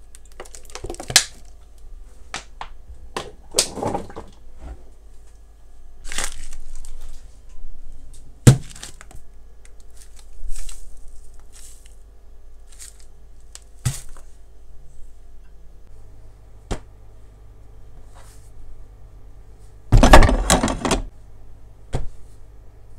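Kitchen preparation sounds: scattered sharp knocks and clicks of utensils and containers, with short scraping or rustling stretches. The loudest clatter comes about twenty seconds in.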